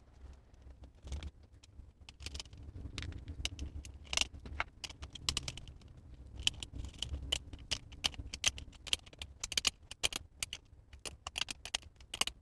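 Light metallic clicks and clinks, irregular and coming faster in the second half, as the metal casing and small parts of a bench multimeter are handled during reassembly.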